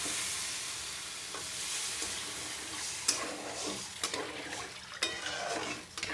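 Masoor dal cooking in a pan with a steady sizzling hiss. About halfway in, a spoon starts stirring and knocks sharply against the pan about three times.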